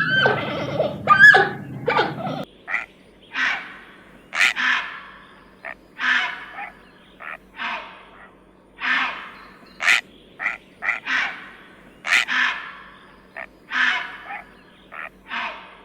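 A dog whining and yelping for about two seconds, then an abrupt change to a different animal giving a long series of short, harsh calls, roughly one or two a second.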